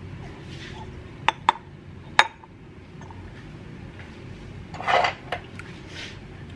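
Ribbed glass tumblers set down on a hard countertop: three sharp clinks starting about a second in, the last the loudest, then a brief rough noise about five seconds in.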